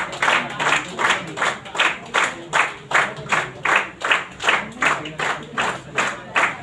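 Audience clapping in unison in a hall, a steady beat of about three claps a second.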